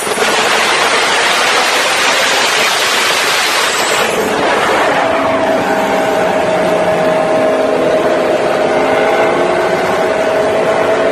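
Motorcycle engine running with heavy wind rush for the first few seconds, then settling to a steady, even engine note held at one pitch.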